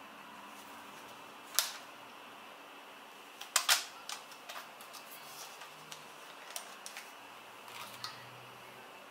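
Plastic clicks and snaps from a Smove smartphone gimbal being handled as its phone clamp arm is folded out and adjusted: one sharp click, a louder double snap about two seconds later, then a run of smaller ticks.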